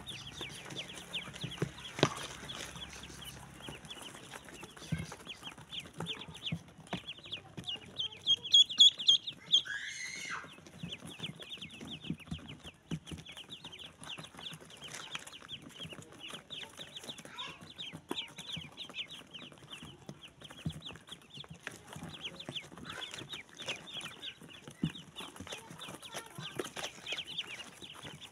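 A box full of ducklings peeping nonstop, many fast, high, overlapping peeps, with a louder run of peeps about eight to ten seconds in.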